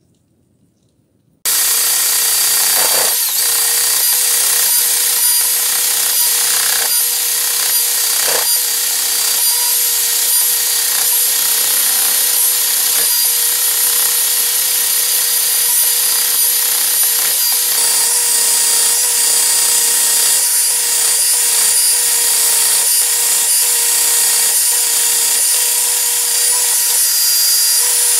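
Handheld rotary tool with a wire brush wheel, cutting in suddenly about a second and a half in and then running steadily against a rusted steel vernier caliper blade: a steady motor whine under the hiss of the wire bristles scrubbing off rust.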